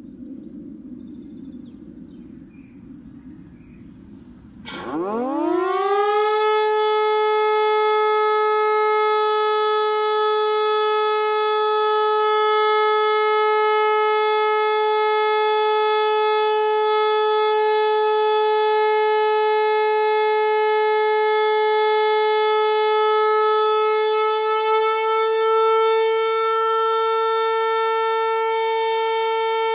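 Hörmann HLS 373 high-performance civil-defence siren, built 1984, starting up about five seconds in. Its pitch sweeps up within about a second, then it holds one loud, steady tone with many overtones, rising slightly in pitch near the end. Before it starts there is only a low background rumble.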